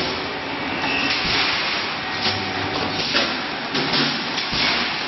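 Wire mesh welding machine running, with repeated clanking knocks every half second to second over a steady mechanical hum and hiss.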